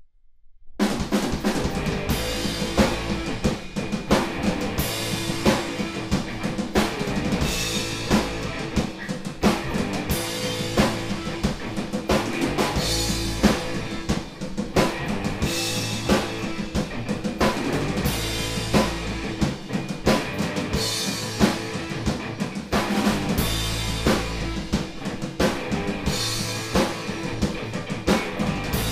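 Instrumental rock band playing, with electric guitar, electric bass and a Pearl drum kit and no vocals. The music starts suddenly about a second in, with a steady drum beat throughout.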